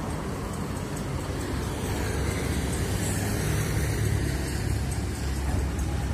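Mercedes-Benz O500R 1836 coach's diesel engine running as the bus moves off slowly, a steady low rumble that grows a little louder about halfway through.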